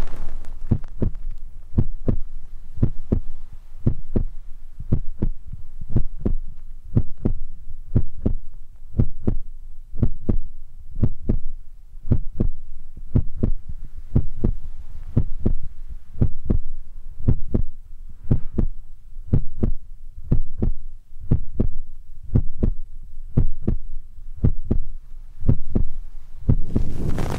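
Soft, low thumps in a steady run of about two a second, an ASMR tapping trigger played into a binaural microphone.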